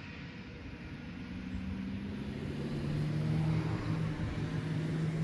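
Steady low engine hum of a motor vehicle, growing louder from about a second in and then holding.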